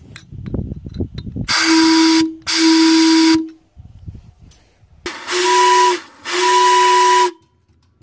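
A steam whistle blown on compressed air: four short blasts in two pairs, each one steady, fairly low note with a loud rushing hiss. A low rumble comes before the first blast.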